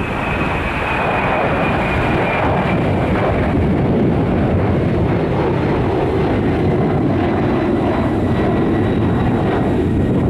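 Twin jet engines of a Boeing 767 at takeoff thrust in the climb-out: a steady roar with a high whine that slowly falls in pitch as the airliner climbs away.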